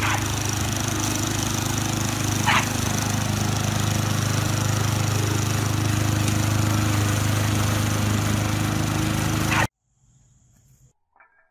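Walk-behind gas lawn mower engine running steadily as it is pushed across grass. It cuts off suddenly about ten seconds in.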